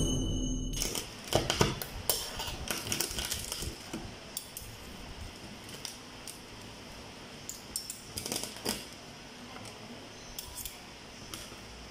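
Metal forks clinking and scraping on a stainless steel plate as they break into crisp deep-fried spaghetti, with crackling. There is a quick run of clicks in the first few seconds, then a few scattered clinks later on.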